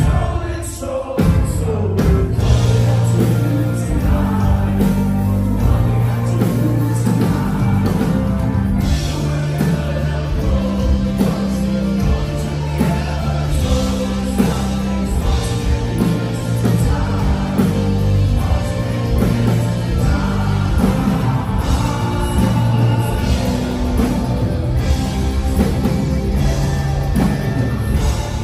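Live rock band playing with sung vocals: electric guitars, keyboard and a heavy, dominant bass line, recorded from within the audience.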